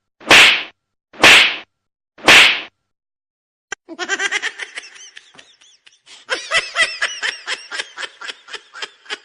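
Three sharp slap sound effects, one a second. From about four seconds in they give way to a fast run of short, high-pitched, squeaky vocal-like sounds, several a second.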